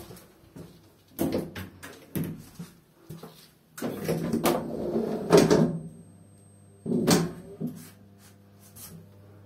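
Folding car doors of an old traction elevator being worked by hand: single clunks, then a louder rattling slide with several knocks about four to six seconds in. A low steady hum with a few clicks follows.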